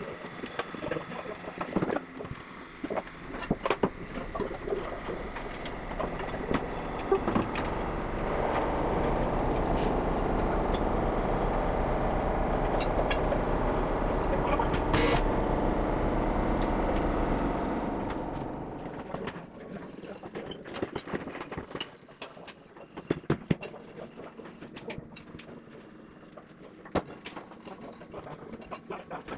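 Workshop sounds from work on a steam locomotive's wheels and frames: scattered metal clanks and knocks, with a steady machine noise running for about ten seconds in the middle.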